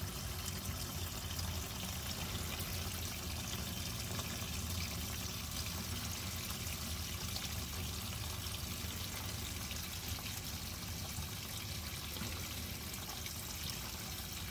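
Diesel fuel, used as a crankcase flush, pouring in a steady stream out of the drain hole of a 5.3L LS V8's oil pan.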